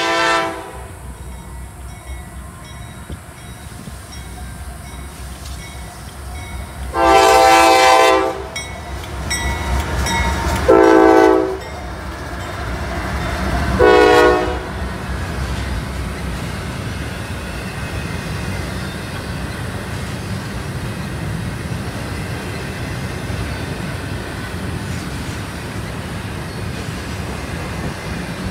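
Freight locomotive horn sounding four blasts, the third one short, as a double-stack intermodal freight train approaches. The train's cars then rumble steadily past on the rails.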